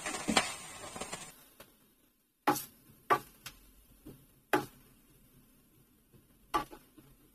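Sliced onions frying in oil sizzle faintly for about the first second, the sizzle cutting off suddenly; then a wooden spatula knocks sharply against the non-stick pan several times at uneven intervals as the onions are stirred.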